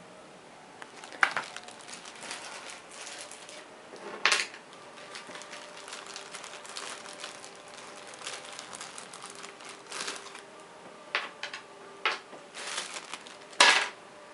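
Small plastic bags of wooden game pieces crinkling as they are handled, with pieces rattling inside. Several sharp clacks, the loudest near the end, as pieces are knocked or set down.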